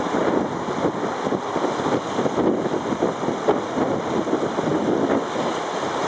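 Wind buffeting the microphone over a choppy sea, with waves splashing and washing against the shore.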